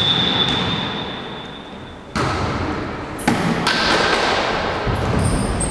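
Two sharp smacks of hands hitting a volleyball, about two and three seconds in, each echoing around the sports hall. Before them a steady high tone fades out.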